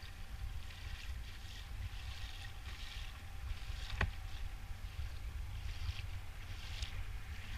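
Small waves lapping against a plastic kayak hull in soft, irregular splashes over a low wind rumble on the microphone, with a single sharp click about four seconds in.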